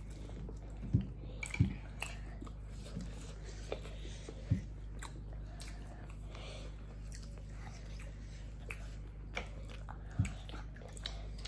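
Eating at a table: quiet chewing and biting, with a few short knocks, over a steady low hum.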